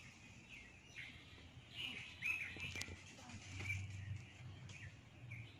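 Small birds chirping with short, high, curving calls scattered throughout, over a faint low background rumble, with one sharp click a little past the middle.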